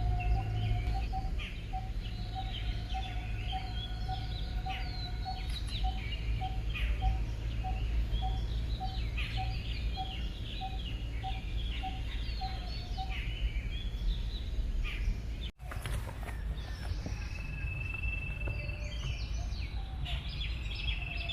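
Several woodland birds chirping and singing, with one bird repeating a single low note about twice a second for most of the first part. A steady low rumble runs underneath, and the sound breaks off abruptly for an instant about two-thirds of the way through.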